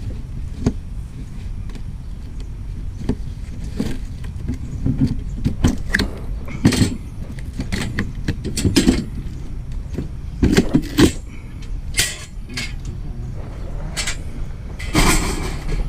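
Rummaging through a box of Christmas lights and curbside junk: irregular rattles, clinks and rustles, the loudest clatters coming in clusters through the second half, over a steady low rumble.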